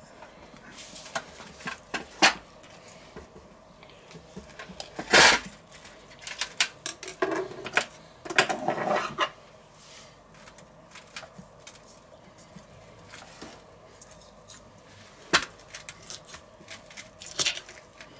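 Poultry shears cutting into a roasted rooster: irregular snips and sharp metal clicks, some as the shears knock against the stainless steel roasting pan. The loudest comes about five seconds in, with a cluster around eight seconds.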